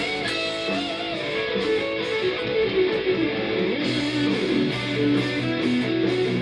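Condor CLP1 electric guitar played through Amplitube amp-simulation software, improvising a lead line with string bends and vibrato over a backing track of drums and bass, coming out of small computer speakers. A sustained bass note enters about four seconds in.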